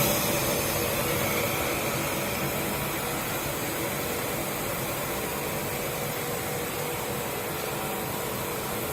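Steady running noise of a power-cable extrusion production line: a constant even hiss with a few faint steady hums under it.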